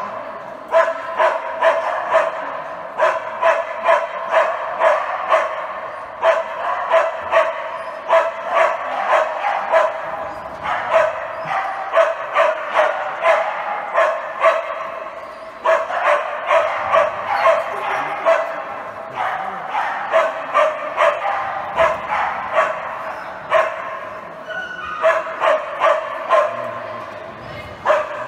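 A dog barking loudly and repeatedly, in long runs of about two to three barks a second with a few short pauses.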